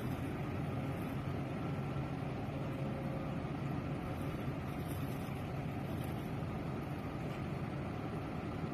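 Boat engine running with a steady low drone, under a constant rushing noise of wind and water.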